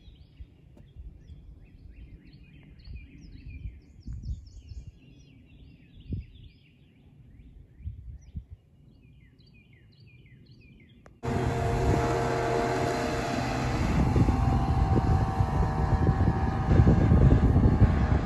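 Small birds chirping and singing over faint wind for the first part. About eleven seconds in, the sound switches abruptly to a motorboat engine running at speed on the lake, mixed with wind noise, and it grows louder near the end.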